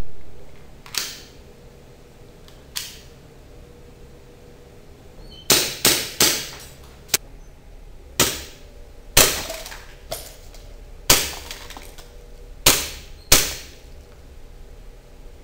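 Airsoft Luger P08 pistol firing about a dozen single shots at uneven spacing, each a sharp pop with a short ringing tail. A quick run of three comes a little before halfway.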